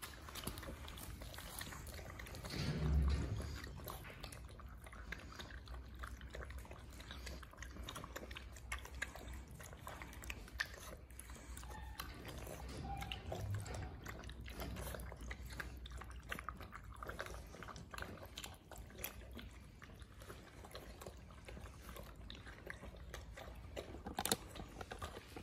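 Two Presa Canario puppies lapping goat-milk formula and chewing chicken chunks from a steel bowl: quiet, wet lapping and chewing clicks throughout. A louder low thump comes about three seconds in, and a sharp knock near the end.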